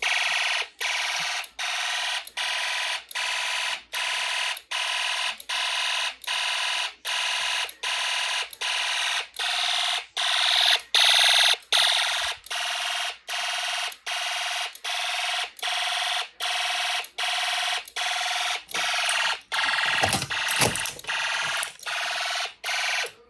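Fire alarm sounder of a homemade Snap Circuits fire alarm system going off in steady pulses, about two a second, after the pull station has been pulled. A couple of knocks come shortly before the alarm cuts off abruptly near the end.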